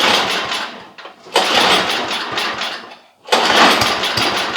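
Recoil pull-starter cranking a cold, choked and primed snowblower engine three times in quick succession. Each pull gives a burst of rapid chuffing strokes that dies away without the engine staying running.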